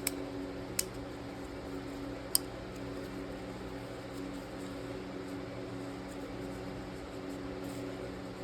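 Steady mechanical hum with a few fixed low tones, like a fan or motor running. Three light, sharp clicks come in the first two and a half seconds, from small parts being handled while an oil filter O-ring is being replaced.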